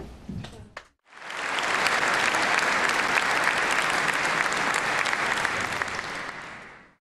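Audience applause that starts about a second in and fades out near the end.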